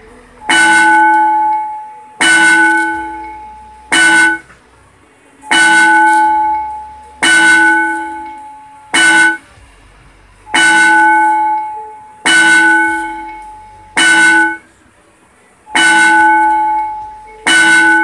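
Recorded school-bell tone played by a Supersync UB-501 automatic bell system: a bell struck in a repeating pattern of three, two ringing strokes that die away and a short clipped third, about every five seconds.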